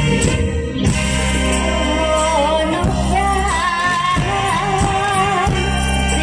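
Live band music from an Isan stage show, with a steady bass beat. About two and a half seconds in, a singer's wavering melody comes in over it.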